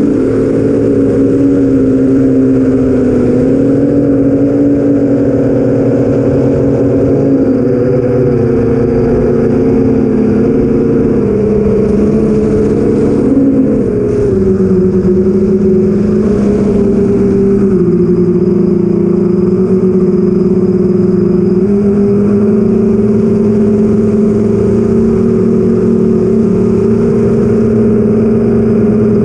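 An 8-inch FPV quadcopter in flight: four BrotherHobby Avenger 2812 1115kv brushless motors spinning 8-inch Master Airscrew propellers, a loud steady hum whose pitch steps up and down with the throttle and settles lower about halfway through.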